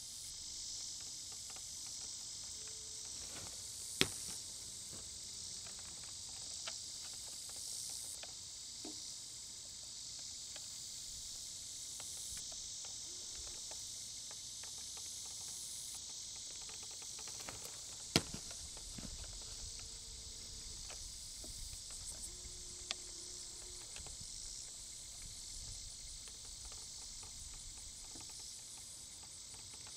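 Steady high-pitched chorus of field insects, with a few sharp clicks standing out, the loudest about four seconds in and again about eighteen seconds in.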